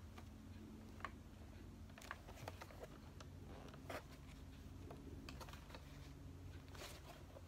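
Faint, scattered clicks and light rustles of a printed cardboard toy box being handled and turned over, over a steady low room hum.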